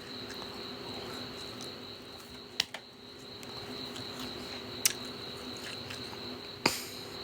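Steady high-pitched insect trill with a low steady hum beneath, broken by three sharp clicks about two seconds apart.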